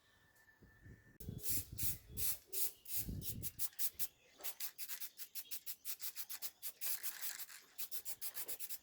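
Hand sanding: quick back-and-forth rubbing strokes, several a second, starting about a second in.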